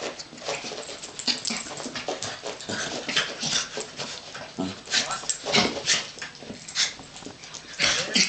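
Two Yorkshire terriers play-fighting: a run of short growls, yips and whines, with scuffling and panting.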